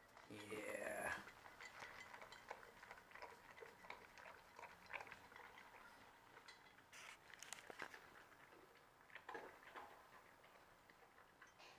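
A dog eating from a bowl: faint clicks, licks and clinks from the bowl and its chain collar. A short rising voice-like sound comes about a second in.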